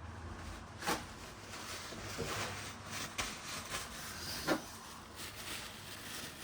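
Wiping greasy hands and parts with a rag: soft rubbing and rustling, with a couple of light knocks of handled metal parts on the bench.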